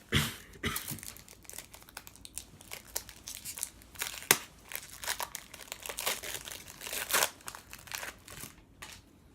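Hockey card pack wrappers crinkling and tearing as packs are opened and the cards handled: a quick string of crackles that dies down near the end.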